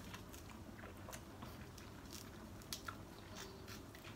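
A person biting and chewing a raw lemon wedge: faint, scattered wet mouth clicks and smacks, two a little louder a little under three seconds in.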